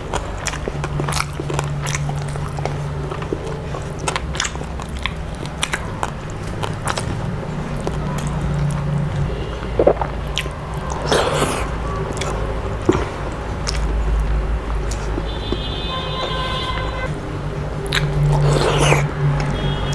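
Close-up mouth sounds of eating by hand: chewing and lip-smacking on mouthfuls of watery rice mixed with fried fish, in many short wet clicks. A steady low hum sits underneath.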